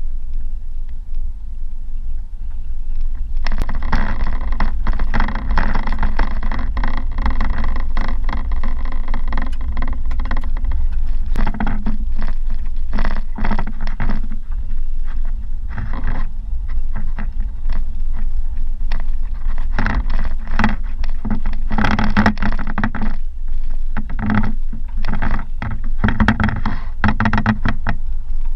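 Vehicle driving over a rough gravel road, heard from inside the cabin: a steady low rumble of tyres and body, with constant rattling and sharp knocks from about three seconds in as it jolts over the surface.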